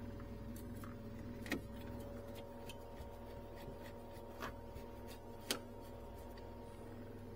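Scattered light clicks and taps of handling against the plastic-lined refrigerator compartment, over a faint steady hum. The sharpest clicks come about one and a half and five and a half seconds in.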